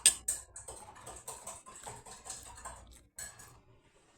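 Eating sounds close to the microphone: a sharp click at the start, then a string of irregular small clicks and smacks.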